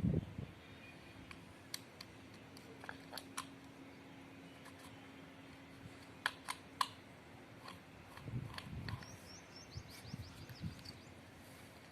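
Scattered light clicks and taps of small parts and tools being handled by hand, with a few soft thumps, over a faint steady hum that stops about halfway through.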